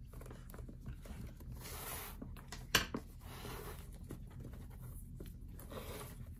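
Leather lace rubbing and scraping as it is drawn through the leather loops of a baseball glove's web, in a few drawn-out pulls, with one sharp click a little under three seconds in.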